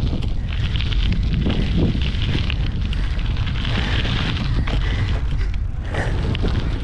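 Heavy wind noise buffeting a handlebar-mounted action camera's microphone as a BMX bike is ridden at speed, with the tyres rolling over the track's packed dirt and asphalt berm.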